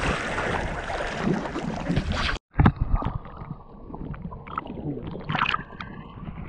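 Sea water splashing hard around the camera as a swimmer plunges into the sea. After a sudden cut about two and a half seconds in, duller water sloshing and lapping against a camera held at the surface, with small knocks as the swimmer strokes.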